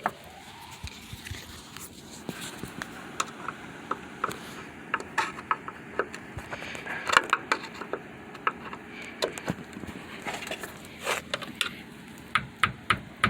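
Hand tools working on car trunk-latch trim and clips: irregular sharp clicks, taps and light scraping, with a loud knock about seven seconds in and a quick run of four louder clicks near the end.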